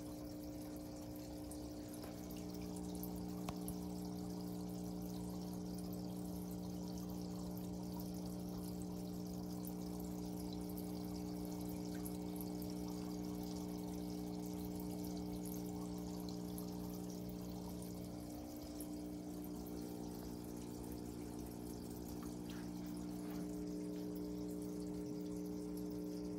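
Water bubbling and trickling from the sponge filters in small planted tubs, over a steady low hum.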